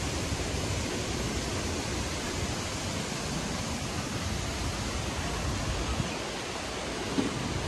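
Steady rushing outdoor noise: an even hiss with an unsteady low rumble underneath, and a small knock near the end.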